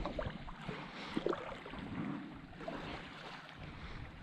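Lake water lapping and sloshing quietly around the legs of a person wading in the shallows, with a few small splashes in the first second or so and light wind on the microphone.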